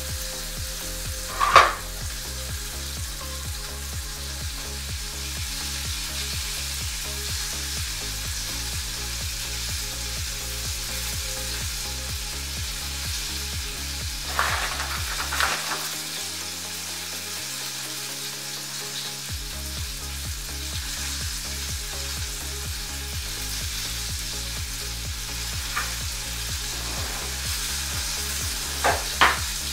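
Background music with a steady stepping bass line over a constant hiss. The bass drops out briefly in the middle, and a few short knocks sound near the start, the middle and the end.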